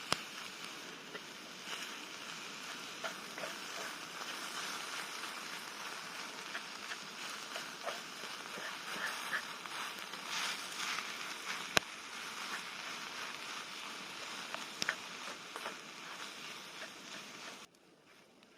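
Eggs frying on a multi griddle: a steady sizzle with scattered small pops and a few sharper ones, cutting off suddenly near the end.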